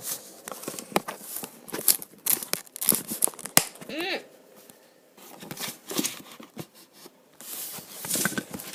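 Close handling noise: irregular rubbing, rustling and clicks of things being moved right by the microphone, with a brief squeaky pitched sound about four seconds in.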